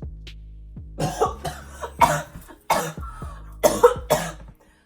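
A person coughing in three short fits of sharp coughs after sniffing powdered herbal snuff (Nuwati Herbals Healer Tea) that irritates the nose and throat.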